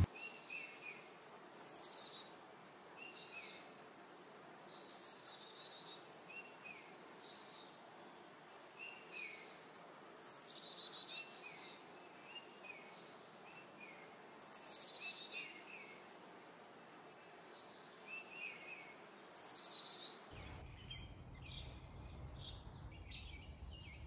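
Male house finch singing: a short warbled phrase ending in a loud high falling note, repeated five times about every four seconds, with chirpy notes in between. Near the end the song stops abruptly and a low steady rumble with faint chirps takes over.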